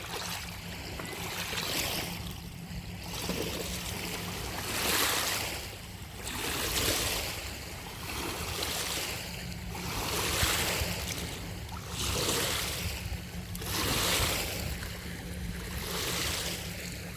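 Small lake waves washing onto a rocky shore. Each wave's wash swells and fades, every two to three seconds.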